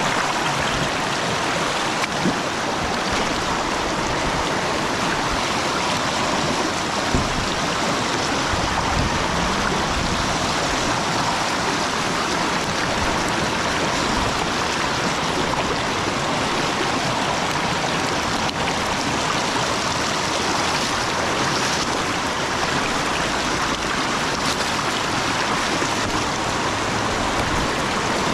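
Steady rush of river water flowing, an even noise that holds at a constant level throughout.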